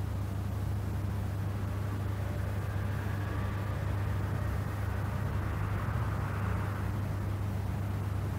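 A steady low hum, with a faint rustle of a hand stroking a cat's fur in the middle.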